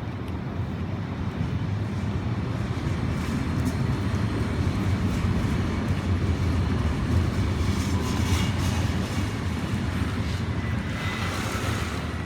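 Low engine rumble of a passing vehicle, swelling toward the middle and fading near the end.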